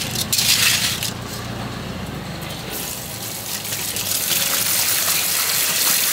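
Scallop shells clattering as they are set down on a tiled counter, then, from about three seconds in, a steady stream of water from a hose running into a stainless steel colander while hands rub and rinse the shucked scallop meat.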